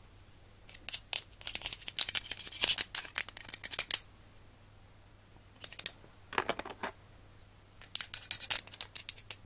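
Six-week-old kittens' claws scratching and clicking on a plastic basket, in quick scrabbling bursts: from about a second in to four seconds, briefly around six seconds, and again from about eight seconds on.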